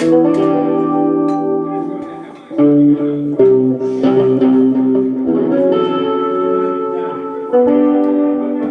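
Guitar chords ringing out, a new chord struck about every two seconds and left to sustain.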